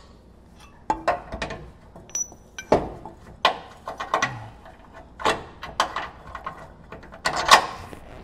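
Metal rear lower control arm from a Slinky kit knocking and scraping against the frame bracket of an 80 Series Land Cruiser as it is forced toward its mount. The arm is out of line with the bracket and will not go in, so it gives a string of irregular clunks and scrapes, with the loudest a little before the end.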